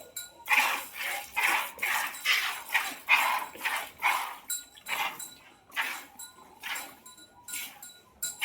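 Cow being milked by hand: milk squirting into a pail in regular strokes, about two a second, easing off and growing fainter in the second half.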